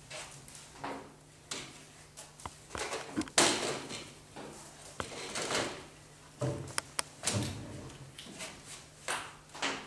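Wooden scraping and knocking as a wooden kneading trough is handled, a string of uneven scrapes with the loudest about three seconds in and a few sharp clicks later.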